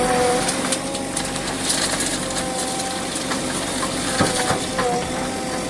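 JCB 3DX backhoe loader working: its diesel engine runs steadily under a held whine that dips in pitch a few times. Scattered knocks and clatters, the loudest about four seconds in.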